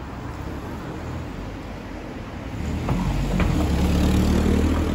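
A car driving slowly past at close range. Its low engine rumble grows louder from about halfway through and is loudest near the end.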